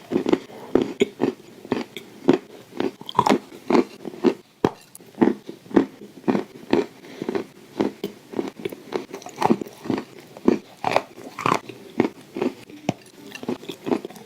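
Clay stones being bitten and chewed close to the microphone: a steady run of sharp crunches, about two a second.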